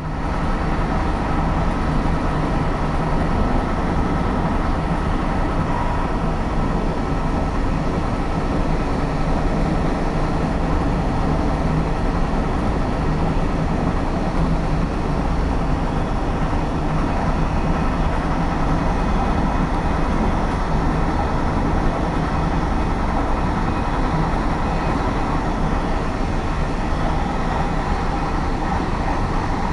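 Steady running noise of an SJ InterCity passenger train at speed, heard from inside its rear coach: an even rumble of wheels on the rails, without breaks or regular rail-joint clicks.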